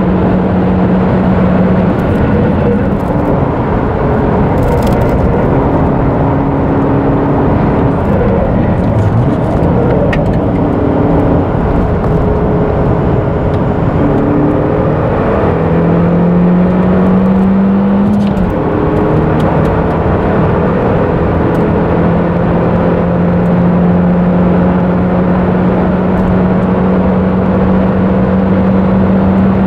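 Nissan March NISMO S's 1.5-litre four-cylinder engine pulling hard through the gears, heard inside the cabin over loud tyre and wind noise. The engine note drops about two seconds in, climbs again, falls sharply at a gear change about 18 seconds in, then rises slowly and steadily.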